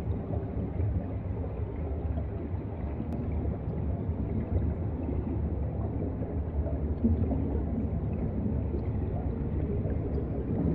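Underwater ambient noise picked up by a submerged camera's microphone: a steady low rumble of moving water, with no distinct events.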